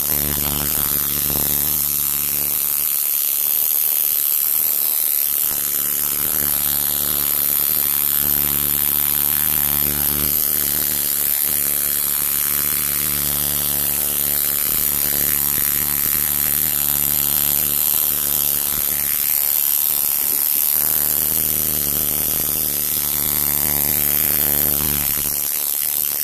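Coil tattoo machine buzzing steadily as its needle works into the skin.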